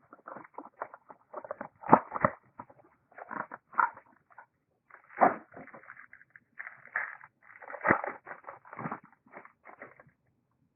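Irregular rustling, crinkling and clicking as a box of trading cards is handled and opened, with a few sharper knocks about two, five and eight seconds in.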